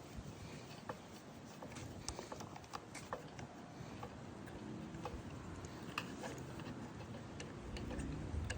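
Scattered light clicks and small metal taps of a hand wrench working on the 10 mm float-bowl bolt of a mower's carburettor.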